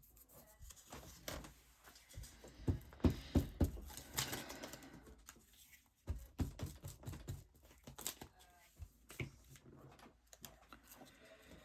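Paper and card being handled and pressed down on a craft table: irregular light taps and clicks, with a longer rustle about four seconds in.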